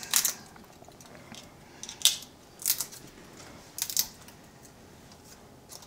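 Dried bay leaves being snapped and crumbled by hand: about five short, crisp crackles spread over several seconds.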